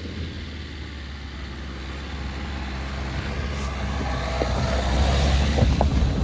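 Dacia Duster 4x4 creeping down a rocky dirt track and passing close by: a low engine rumble that grows steadily louder as it approaches, with tyres crunching and knocking over loose stones in the last couple of seconds.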